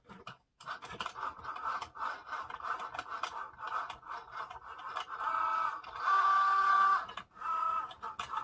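Cricut Joy cutting machine running a test cut on Smart Vinyl without a mat. Its motors whine in short bursts and longer steady runs as the blade carriage and rollers move back and forth, with light clicks in between. The longest steady runs come about five to seven seconds in.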